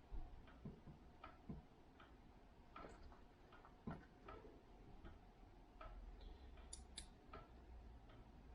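A clock ticking faintly and evenly, about one tick every three-quarters of a second, with a few soft knocks and two sharp clicks from LEGO pieces being handled.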